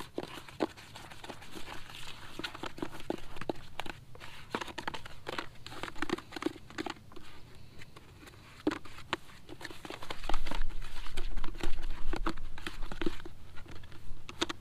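Carp groundbait of chum and corn being mixed by hand in a plastic bucket: many short, irregular crackles and clicks of the wet mix and the bucket being handled. A louder stretch with a low rumble comes about ten seconds in.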